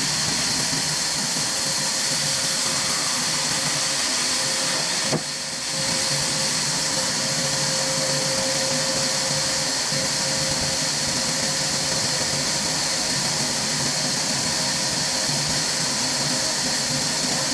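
Steady machinery noise, mostly a strong hiss with a faint steady hum under it, dipping briefly about five seconds in.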